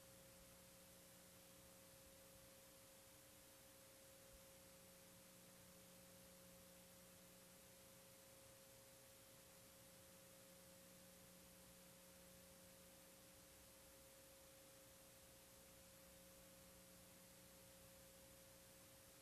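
Near silence: faint steady hiss with a thin constant hum tone, the background noise of a VHS tape transfer.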